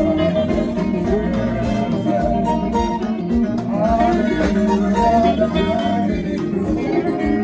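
Live band playing slow highlife: electric guitar through an amp, electronic keyboard and drum kit, with a steady beat.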